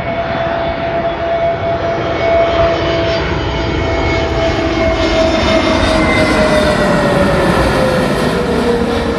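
Twin-engine British Airways narrow-body jet airliner on final approach with its landing gear down, its engines sounding as a steady roar with a whining tone. The tone drops in pitch about six to eight seconds in as the jet passes overhead.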